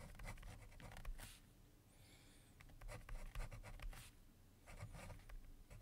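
Faint scratching of a pen writing a word on paper, in short strokes with a brief pause about two seconds in.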